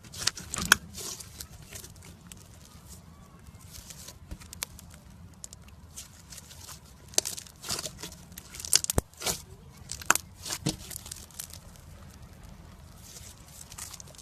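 Hands squishing, stretching and poking slime, making irregular sharp clicks and pops as air pockets in it burst, with a cluster of louder pops from about seven to eleven seconds in.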